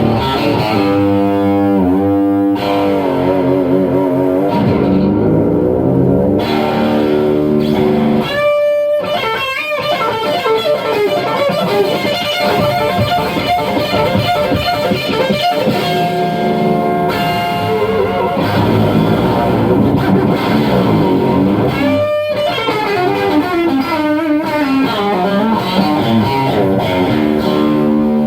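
Electric guitar played through a tube guitar amplifier: lead lines with string bends, single notes mixed with a couple of sharply struck chords about a third of the way in and again near the end.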